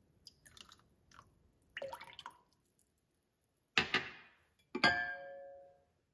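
Lemon juice trickling and dripping into the broth of a slow cooker. Then come two sharp glassy knocks about a second apart, the second ringing briefly, as a small glass bowl is set down on a hard surface.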